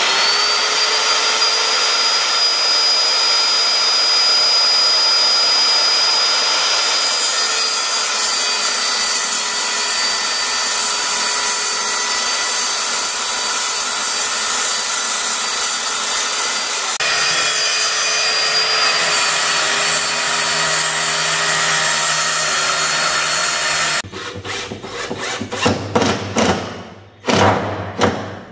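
Corded circular saw spinning up with a rising whine, then running steadily as it cuts through plywood. Near the end, a cordless drill runs in several short stop-start bursts into the plywood.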